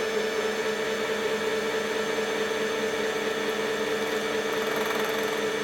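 Singer Patchwork sewing machine's electric motor running steadily at speed to wind the bobbin, an even, unchanging motor whine.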